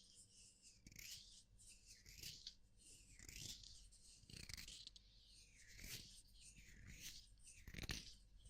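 Soft ASMR rubbing strokes close to the microphone: a quiet scratchy hiss repeating irregularly, about once a second.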